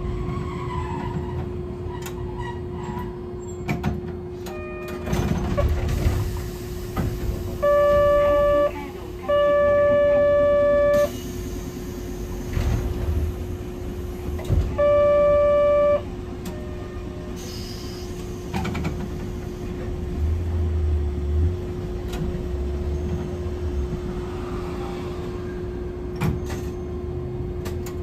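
Inside a Hankai Tramway type 701 tram: running noise with a steady hum, and a loud steady buzzer-like tone that sounds three times. The first two come close together about eight seconds in, the second of them the longest, and the third comes about halfway through.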